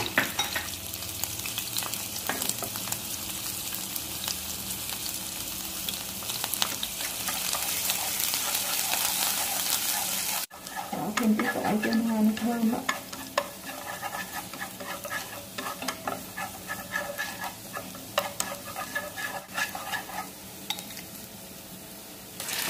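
Minced shallots and garlic sizzling in hot oil in a non-stick frying pan, stirred and scraped with a wooden spatula, with a steady crackling hiss. The sound breaks off for an instant about halfway and then carries on a little quieter.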